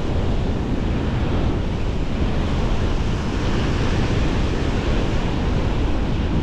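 Ocean surf breaking and washing up the sand, with steady wind rumble on the microphone.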